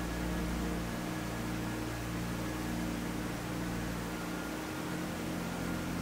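Steady rush of a small forest creek running over rocks, a constant loud wash of water noise. Low sustained music notes sit under it and change about a second in and again near the end.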